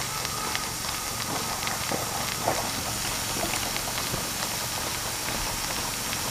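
A standing 1-inch-scale Little Engines Pacific live-steam locomotive hissing steadily, with scattered light clicks and knocks. A sharper knock comes right at the start and another about two and a half seconds in.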